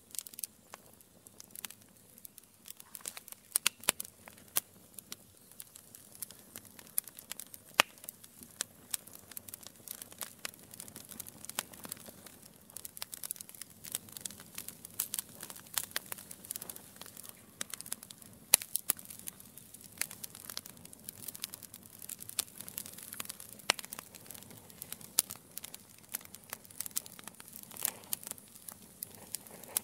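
Wood fire crackling steadily, with irregular sharp pops and snaps over a low hiss of burning embers; a few pops stand out louder than the rest.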